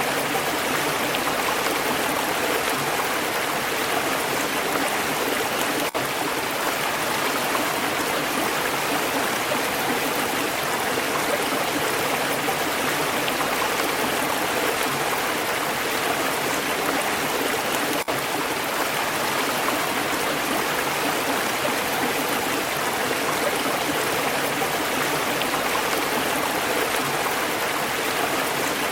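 Stream water flowing steadily over rocks: a constant rushing and babbling.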